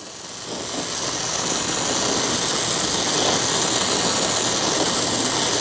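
Small gas torch burning with a steady hiss that builds over about the first second and a half, then holds level, as it heats a metal intake tube toward red heat before quenching.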